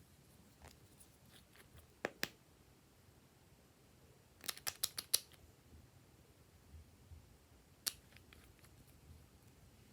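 Scattered short, sharp clicks in a quiet room: two about two seconds in, a quick run of about six around the middle, and one more near the end.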